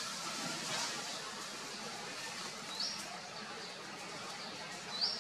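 Outdoor ambience with a steady hiss, over which a bird gives two short, rising high chirps about two seconds apart.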